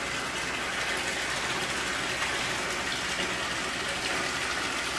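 Water running in a steady gush from an overhead supply pipe into a large round tank, splashing onto the water inside as the tank is filled.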